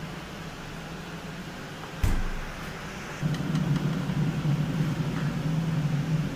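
A single sharp knock about two seconds in, then a louder low rumbling noise from about three seconds in.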